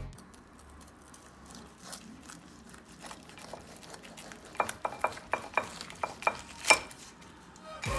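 Light clinks of utensils against dishes, about eight quick, sharp ones with a short ring in the second half, one louder than the rest near the end, over faint room noise.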